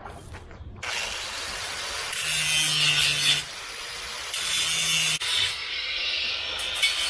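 Angle grinder running with its disc grinding against a workpiece, a harsh hiss that starts about a second in and breaks off briefly near five seconds.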